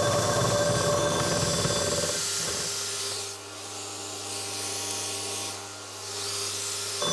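Milling machine running, its cutter working a gear blank held in a dividing head. About two seconds in the noise drops to a quieter steady hum with two brief dips, and the full cutting noise comes back suddenly at the end.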